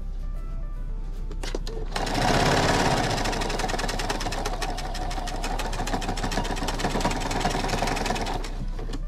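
Pfaff electric sewing machine starting up about two seconds in and running at a fast, even stitching rhythm as it sews flannel, then stopping near the end.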